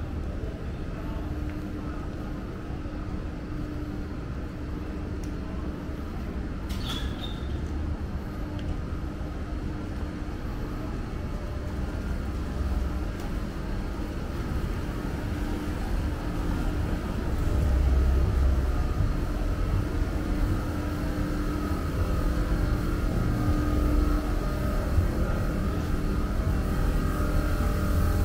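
Road traffic: motor vehicles running and passing with a steady low rumble and hum, growing louder a little past halfway through.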